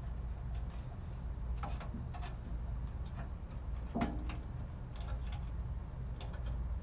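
Scattered small clicks and taps as wing bolts with lock washers are turned by hand into the underside of a large-format printer, fixing it to its stand, over a steady low hum. The clicks come irregularly, the sharpest about four seconds in.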